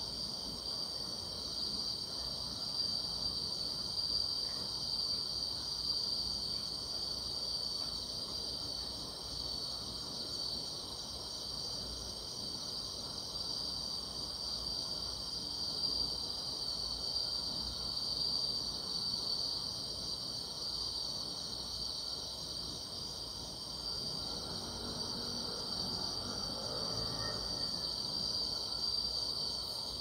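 Steady chorus of grass insects: a continuous high, finely pulsing trill with a fainter, higher band above it, going on without a break.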